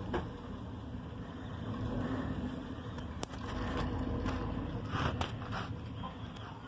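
Engine of a green step van running as the van moves slowly along the street: a steady low rumble with a fine throb. A few short scrapes and clicks sound over it, the loudest about five seconds in.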